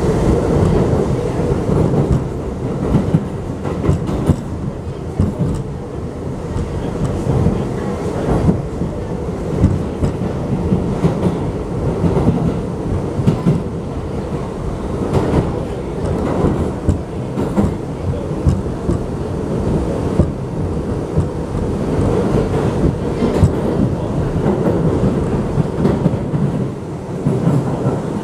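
A New York City Subway 7 train running at speed through a tunnel: a steady rumble of steel wheels on rail, with frequent clicks and knocks from the rail joints.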